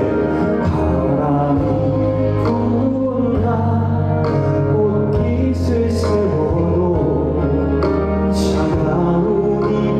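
Trot song music with a steady bass and drum beat, cymbal strokes and a held melody line over it, possibly with a male voice singing.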